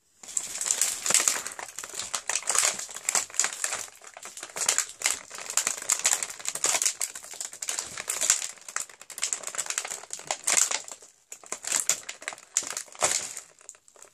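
Thin clear plastic advent-calendar tray crinkling and crackling as bath bombs and soaps are pried out of it by hand, in irregular crackles with a couple of brief lulls near the end.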